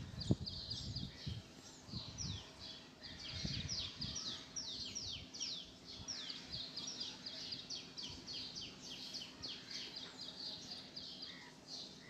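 Birds chirping busily in the background, a quick, continuous run of short downward-sweeping chirps. A few soft low thumps of handling sit under it, the sharpest just after the start.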